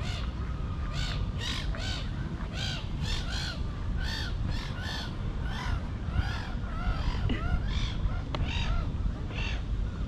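Jackdaws calling: a flock's short, arched calls repeating about two a second and overlapping.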